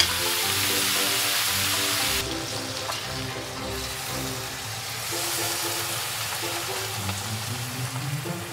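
Light background music with a simple melody over the sizzle of pork and vegetables frying in a pan. The sizzle drops sharply about two seconds in, as the pan comes off the gas burner once the stir-fry is done.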